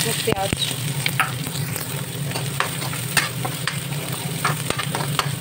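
Chopped onions sizzling in hot oil in a kadhai while a steel spoon stirs them, scraping and tapping against the pan in short, irregular strokes.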